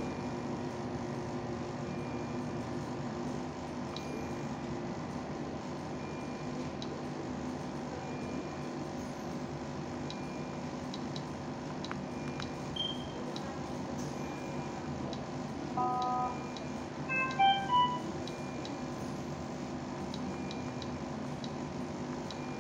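Handheld cardiometry device giving electronic beeps over a steady background hum: a single high beep, then a short chord of tones, then a quick run of short beeps at changing pitches about two-thirds of the way through.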